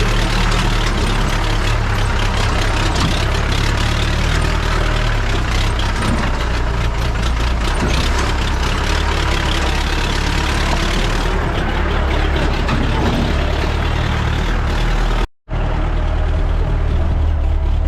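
Jeep engine running steadily under a dense rattle and road noise. The sound drops out for a split second about 15 seconds in.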